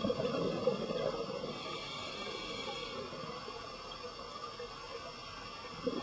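Scuba diver breathing through a regulator underwater: a gurgling rush of exhaled bubbles at the start that fades over a second or so, a quieter stretch, then the next exhale beginning near the end.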